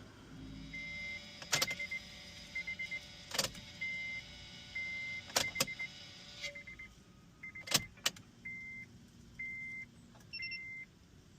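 Electronic beeps from the car and key-programming gear while a new key is programmed to the immobilizer: short high pips, some in quick threes, and longer held beeps, with a handful of sharp clicks. A steady hum runs underneath and stops about two thirds of the way through.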